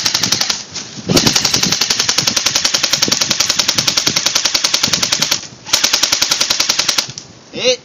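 Airsoft electric gun (AEG) firing on full auto in three rapid bursts: a short one, a long one of about four seconds, then a shorter one. A player shouts "Hit!" near the end.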